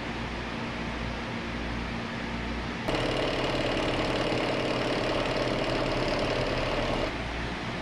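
Milling machine spindle driving a hole cutter through a metal plate: a louder steady cutting whine with a fine grinding chatter that starts abruptly about three seconds in and stops about a second before the end, over a steady machine hum.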